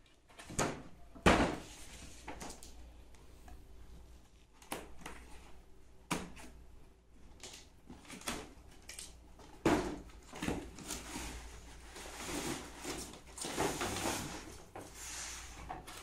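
Cardboard toy box being handled and opened: several sharp knocks as the box is tipped and set against the floor, the loudest about a second in, then rubbing and scraping of cardboard on cardboard as the inner tray slides out of its sleeve.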